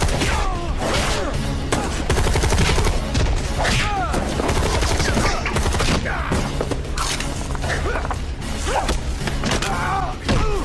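Cartoon action soundtrack: repeated bursts of gunfire and impacts over a dramatic film score.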